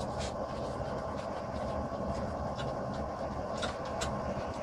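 Steady roar in a forging shop, with a few sharp metallic clicks as a wrench grips and turns an iron bar clamped in a bench vise to twist it.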